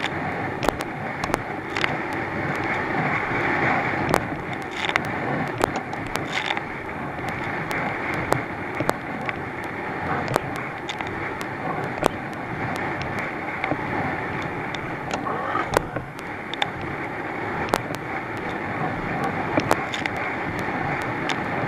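Thundercat inflatable racing boat running fast through swell: outboard motor under a heavy rush of wind and water, with frequent sharp slaps as the hull hits the waves.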